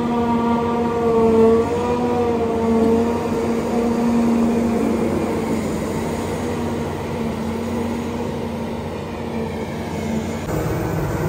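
John Deere self-propelled forage harvester running at work, picking up rowed grass and blowing chopped silage out of its spout into a trailer. A steady machine drone with a held tone over a dense rushing noise.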